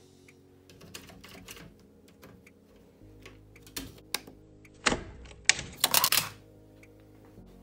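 Hard plastic clicking and snapping as a cassette deck's hinged cassette-well door is handled, pried at and swung open. Scattered light clicks lead to a cluster of louder snaps about five to six seconds in.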